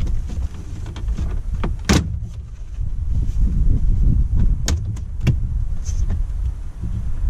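Plastic dashboard trim of a Toyota Tacoma being pried off by hand, with a few sharp clicks as its snap-in clips let go, over a steady low rumble.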